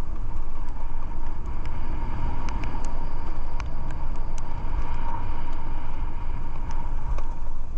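A vehicle travelling along a road: a steady, loud low rumble of road and travel noise, with a faint steady whine and scattered light clicks.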